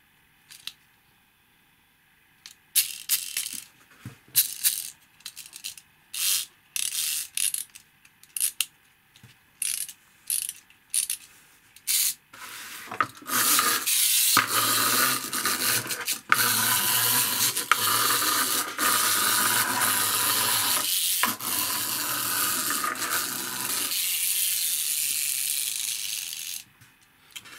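Clockwork road-roller toy's wind-up spring motor being wound in a series of short ratcheting twists. It is then released and runs as a steady mechanical whirr of its plastic gear train for about ten seconds before stopping.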